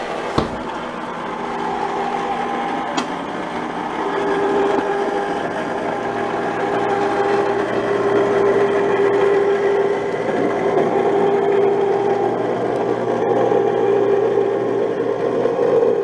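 Electric freezer-bowl ice cream maker running, its motor turning the paddle in the frozen bowl with a steady hum that grows a little louder about four seconds in. A sharp click sounds just after the start.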